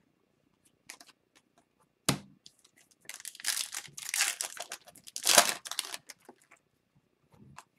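Wrapper of a 2021-22 Upper Deck Series 2 hockey card pack being torn open and crinkled as it is pulled off the cards, for about three seconds. A single sharp knock comes about two seconds in.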